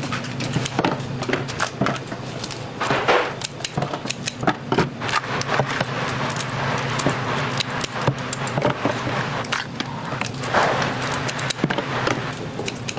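Crabs being handled and cut with scissors over plastic tubs: irregular clicks, snips and scrapes of shell, blade and plastic, with a steady low hum underneath.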